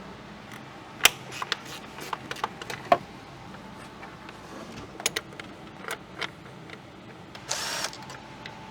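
Hand tools clicking and knocking against metal engine parts as the intake manifold is being removed, in scattered sharp strikes, with a short rasping burst near the end.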